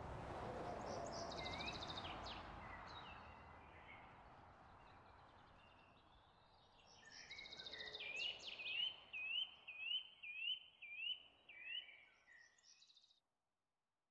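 Outdoor background noise fading down, then a bird singing a run of short rising chirps, about two a second, with higher trills, which cuts off abruptly near the end.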